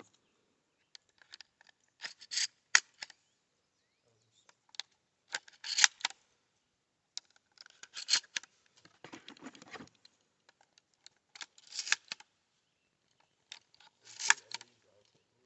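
Stevens 320 pump-action shotgun being loaded: shells pushed into its tube magazine, each making a short cluster of metallic clicks and scrapes, about every two to three seconds.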